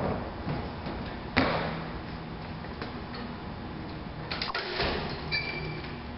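A thud at the start, then a sharp metal clank about a second and a half in, the loudest sound, with a short ring after it. Near the end come a few clicks and short high squeaks as the all-mechanical hitch-mounted tailgate lift is worked by hand.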